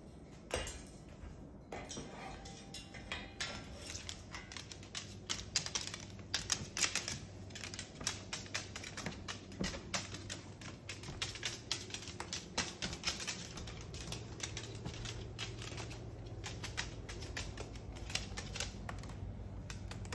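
Irregular light clicking and tapping, densest in the middle, of a Moluccan cockatoo's claws on a hardwood floor as it walks about pushing its toy.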